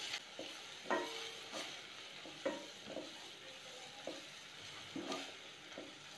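Wooden spatula stirring shallots and ginger-garlic paste frying in oil in a stainless steel pan: a faint sizzle with irregular scrapes and knocks of the spatula against the pan.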